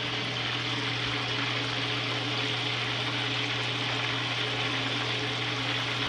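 Pieces of flathead catfish belly sizzling steadily in a pan of hot oil on a gas stove, with a steady low hum underneath.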